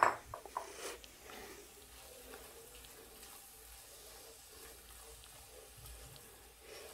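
A spatula knocks against a nonstick pan a few times in the first second, then the faint, soft scraping and rustle of chopped fenugreek leaves and peas being stirred.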